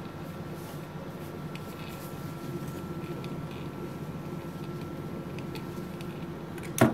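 Steady hum of a BD FACSAria cell sorter running, with a faint steady tone over it, and soft rustling of a tissue wiping the inside of its sort collection chamber. A sharp knock near the end.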